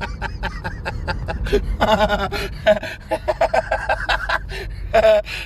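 Laughter and indistinct voices inside a moving car, over a steady low road rumble.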